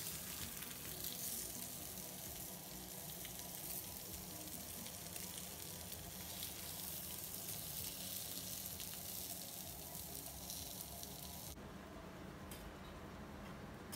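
Entrecôte steak and green peppers sizzling on a hot Staub cast-iron grill pan, a steady frying hiss as the meat is seared. Near the end the sizzle drops away abruptly to a faint hiss.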